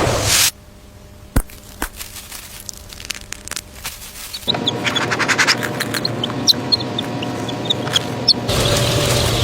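Many short, high-pitched peeps of chicks over a steady hum of a poultry house, starting abruptly about halfway through; before that, a quieter stretch with a few sharp clicks.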